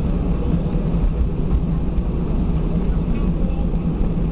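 Steady cabin noise of an Airbus A320 taxiing after landing: the jet engines at idle give a low, even hum under a constant drone.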